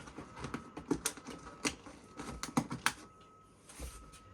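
Cardboard pressure-washer box being opened and handled: a run of irregular clicks, taps and knocks, busiest in the first three seconds.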